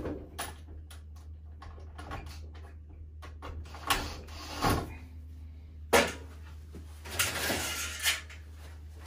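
Handling knocks, clicks and clatter of a cordless drill and metal boiler fittings at the underside of a wall-hung combi boiler: separate sharp knocks about four, five and six seconds in, and a brief rattle a second later. A low steady hum runs underneath.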